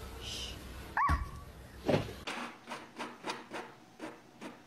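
Two short animal cries, the first about a second in and the second falling in pitch about two seconds in. Then an inkjet printer runs, feeding out paper with rhythmic clicks about three to four times a second.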